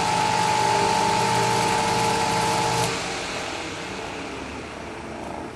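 Vintage Zero table fan's electric motor running, freshly oiled and spinning freely, with a steady whine and hum over the whirr of the blades. About three seconds in, the tone cuts off with a click, leaving a whirr that slowly fades.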